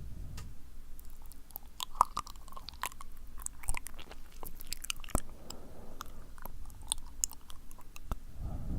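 Sticky, wet mouth sounds close to the microphone: irregular lip smacks and tongue clicks. A low breathy blowing fades out just after the start and comes back near the end.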